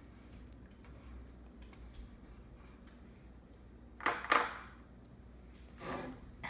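Room tone with faint brush work, and about four seconds in two short scratchy sounds as a paintbrush dabs and stirs acrylic paint in a plastic palette, with a weaker one near the end.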